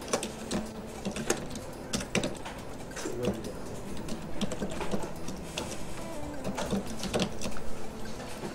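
Computer keyboard typing: a run of irregular key clicks, now quick, now spaced out.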